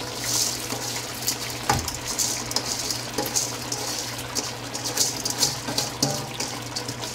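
Pre-soaked basmati rice poured and scraped by hand from a metal bowl into a pot of boiling water: wet splashing and hissing, with a few sharp clicks.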